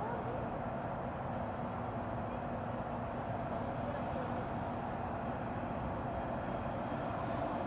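Steady night ambience: a low rumble with a faint hum, and insects chirring steadily high up. Three brief high chirps come about two, five and six seconds in.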